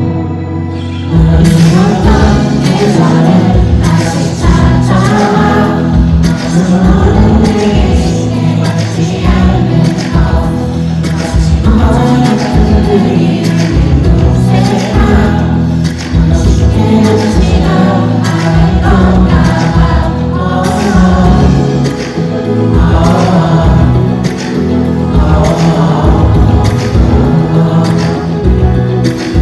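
Live pop music played loud over a concert sound system: a band with a steady drum beat and singing. The drums come in about a second in, after a quieter opening.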